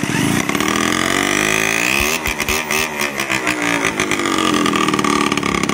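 Small motorcycle engine with no exhaust fitted, spun over by an electric drill on its crankshaft nut, catches and runs on its own. It revs up and down unevenly with sharp pops.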